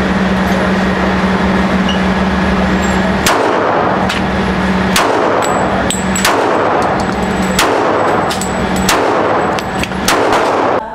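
Glock 21 .45 ACP pistol fired at an indoor range: six sharp shots, the first about three seconds in and the rest roughly a second and a half apart, each ringing on in the enclosed lane, over a steady low hum.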